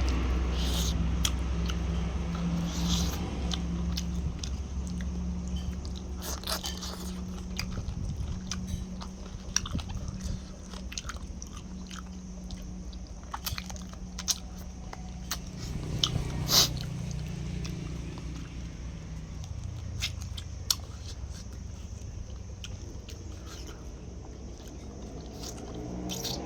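A person eating chicken: chewing and biting, with scattered sharp crunches and clicks and the loudest crunch about two-thirds of the way through. A low vehicle rumble is there at the start and fades over the first few seconds.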